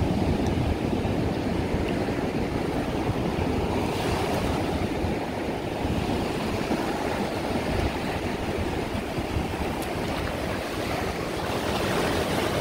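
Waves breaking and washing up a sand beach in a steady surf wash, with wind on the microphone.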